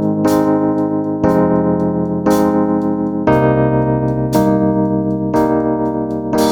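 Piano music: sustained chords struck about once a second.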